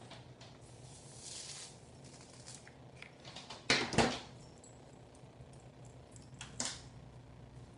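Hot crimping iron being clamped onto and released from sections of hair: a brief soft hiss about a second and a half in, two sharp clacks close together near the middle, and another clack near the end.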